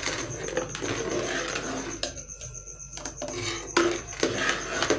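Metal spoon stirring a milkshake in a steel pot, scraping and clinking against the pot's sides, with several sharper clinks in the second half.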